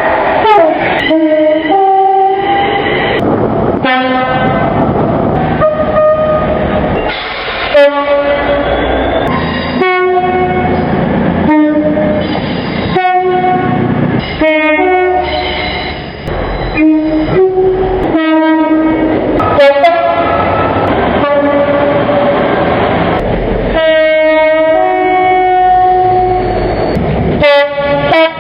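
Two-tone air horns of British locomotives and multiple units, in a rapid run of short clips cut one after another. Each horn sounds a higher and a lower note in turn, over engine and rail noise.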